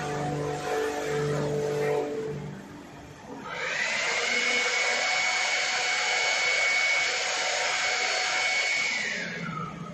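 Automatic wheelie-bin washing machine running through its cycle. First its spray jets hiss over a pulsing pump hum for a couple of seconds. Then, about three and a half seconds in, a motor starts with a rising whine and a loud rushing hiss, holds steady, and winds down with a falling whine near the end.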